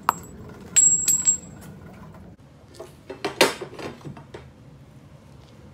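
Light metal clinking, with a short high ring about a second in, from a piece of aluminum strut being knocked and handled. A few duller knocks follow partway through.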